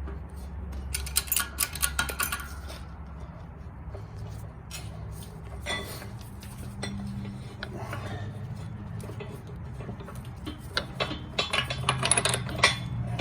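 Metal parts of a ball-joint press setup, sockets, blocks and control arm, clinking and knocking together as they are handled. There are two bursts of clinks, one early and one near the end, with a low steady hum underneath.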